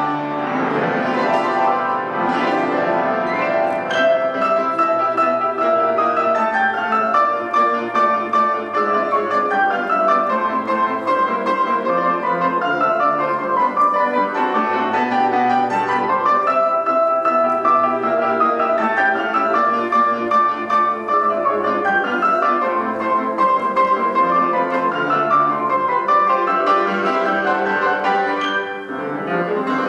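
Grand piano played four hands by two pianists in a classical duet, with quick runs rising and falling over a steady lower part.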